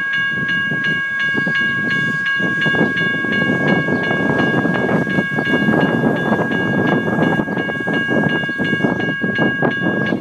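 General Signals Type 1 electronic crossing bells ringing at about three strikes a second while the crossing gates rise after the train has cleared, cutting off suddenly near the end as the gate arms come up. A steady rushing noise runs underneath.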